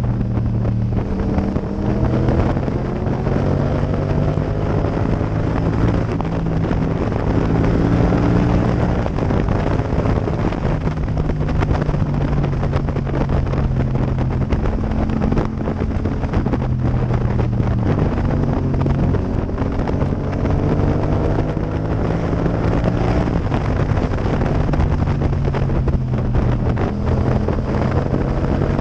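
Yamaha MT-07's parallel-twin engine running at road speed under heavy wind rush, its pitch shifting up and down several times with throttle and a gear change.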